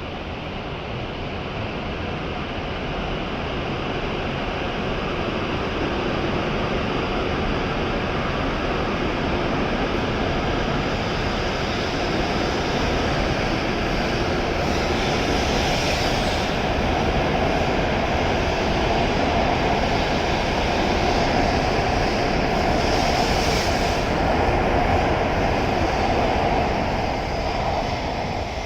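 E7-series Shinkansen train pulling out of the platform, its running noise building steadily as it gathers speed and easing off near the end.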